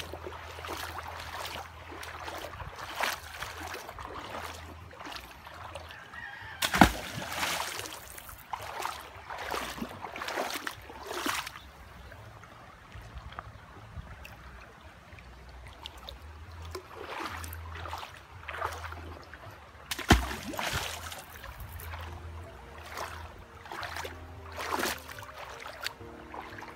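Shallow river water splashing and sloshing as hands move stones about underwater, with two sharp thumps, about 7 seconds and 20 seconds in.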